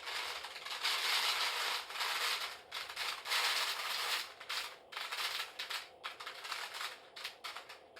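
A handful of rice grains falling onto a sheet of paper as a foley imitation of rain: a dense, crackling hiss of many tiny ticks that swells and thins in waves, then breaks up into scattered ticks near the end and stops.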